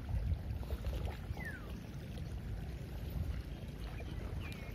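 Low rumble of wind on the microphone with sea water washing against shoreline rocks. A short whistle falls in pitch about one and a half seconds in, and a brief wavering high call comes near the end.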